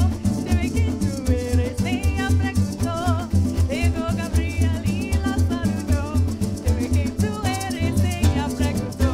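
Live parang music: several voices singing over strummed guitar and cuatro, with shakers rattling along and a steady pulsing bass.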